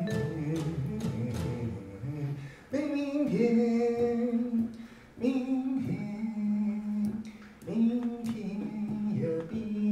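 A voice singing a slow melody in several phrases of long held notes, with a pause between phrases, over light musical accompaniment.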